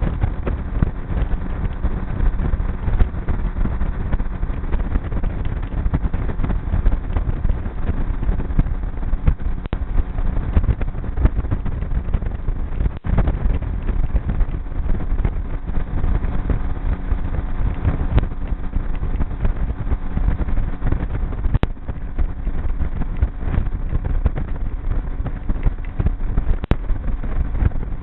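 Motorboat engine running steadily under way, with wind rumbling on the microphone. There is a brief dip in the sound about thirteen seconds in.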